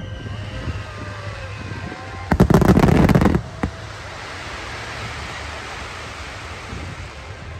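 Aerial fireworks: thin falling whistles near the start, then a loud volley of sharp bangs and crackles from about two and a half to three and a half seconds in. After the volley, a fizzing crackle hangs on and slowly fades.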